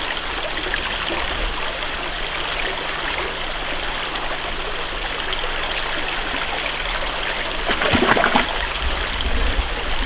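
Shallow forest creek flowing, a steady rush of water. A brief louder burst of noise about eight seconds in.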